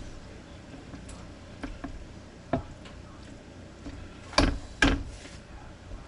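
Kitchen items being handled: scattered light clicks and knocks, then two louder knocks about half a second apart near the end.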